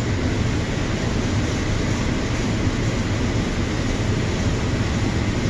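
Steady rushing hum of a running fan, unchanging throughout.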